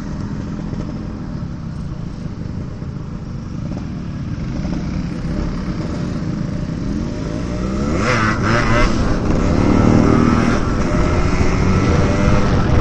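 Yamaha RX-King's two-stroke single-cylinder engine running through a loud aftermarket 'pure sound' exhaust. It idles at first, then from about six seconds in it revs up with rising pitch as the bike pulls away, getting louder.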